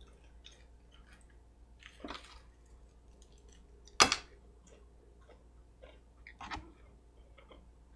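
Faint scattered clicks and small handling noises close to the microphone, with one sharp click about four seconds in.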